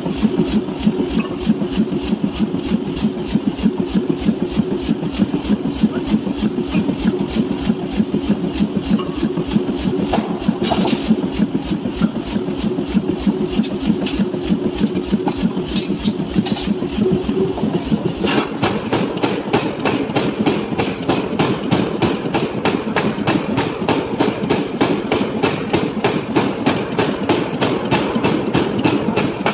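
Power forging hammer striking a red-hot steel disc on the anvil in rapid, evenly spaced blows over the machine's steady running drone. About two-thirds of the way in, the deep rumble drops away and the blows ring sharper.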